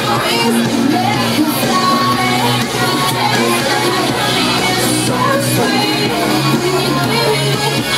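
Pop song with a sung female vocal over a steady beat, played loud.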